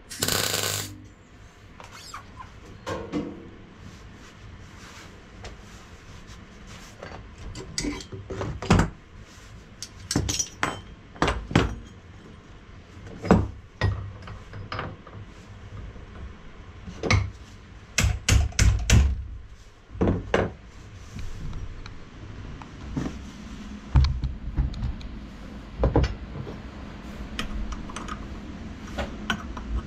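A short welding tack crackles at the very start. Then come scattered metallic clinks and knocks as steel exhaust cones, locking pliers and other hand tools are picked up and set down on a metal-topped workbench.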